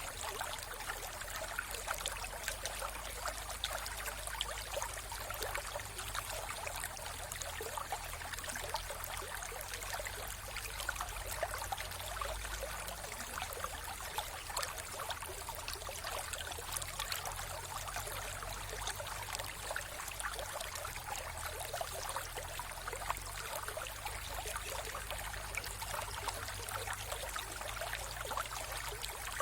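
Mountain river flowing: a steady rush of water with many small splashes, unchanging throughout.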